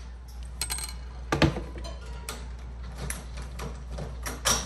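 Scattered light clicks and knocks of metal door hardware being handled: a doorknob and lockset worked by hand on the door. The sharpest knock comes about a second and a half in, and another near the end.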